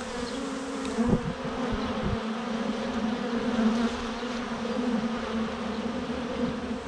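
A swarm of honey bees buzzing steadily in a low, even drone, with a few brief low bumps between one and two seconds in.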